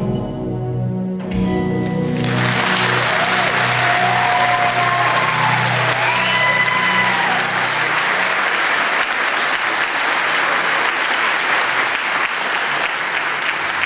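The show's closing music ends about two seconds in and a theatre audience breaks into loud, steady applause that carries on, with the music fading away underneath.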